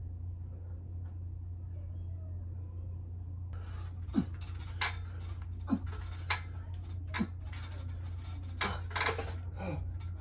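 A man breathing hard with short, strained exhales and grunts through a set of bodyweight pull-ups, one about every second and a half starting a few seconds in, over a steady low hum.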